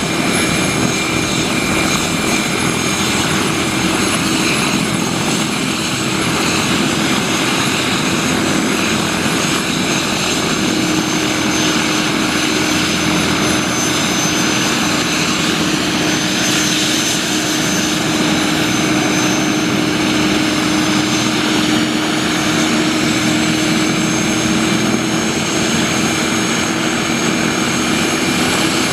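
1994 Eurocopter BK-117 twin-turbine helicopter running on the ground with its rotors turning: a steady turbine whine with several high tones over a constant lower hum.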